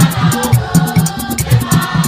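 A choir sings a gospel song over low drum beats and a fast, steady shaker rhythm.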